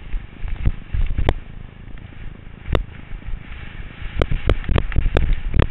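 Skis scraping and chattering over rutted, hard-packed snow, heard through a helmet-mounted GoPro with wind rumbling on the mic. Sharp knocks and clacks come through, a few early on and a quick run of them in the last second and a half.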